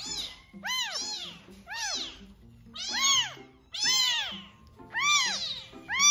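Neonatal kitten of about 85–90 g, eyes barely open, crying hard and repeatedly: about eight high mews in six seconds, each rising then falling in pitch, the loudest around halfway and near the end.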